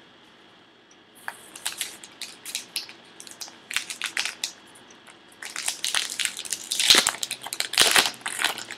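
Baseball card pack wrapper torn open and peeled back by hand: irregular crinkling and tearing, starting about a second in and getting louder and denser over the last three seconds.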